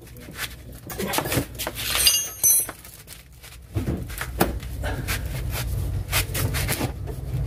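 Metal clinks and knocks from a ring wrench being forced on a tight nut on the front suspension, with one sharp ringing clink about two seconds in. A low steady rumble sets in about halfway.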